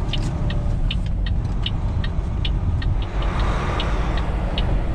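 A semi-truck's engine running at low speed, heard from inside the cab, with a turn-signal flasher ticking about two and a half times a second. A rushing noise comes in about three seconds in.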